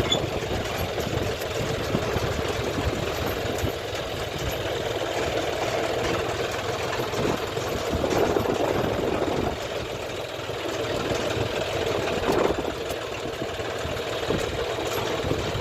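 An engine runs steadily with a rapid knocking beat, mixed with strong wind buffeting the microphone.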